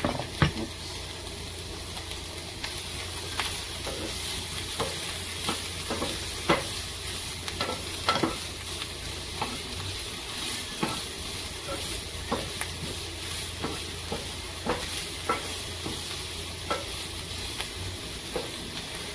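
Diced beef salami, onion and bell pepper sizzling in oil in a nonstick frying pan, with a wooden spatula stirring and tapping against the pan in irregular clicks. A louder clatter about half a second in as the salami goes into the pan.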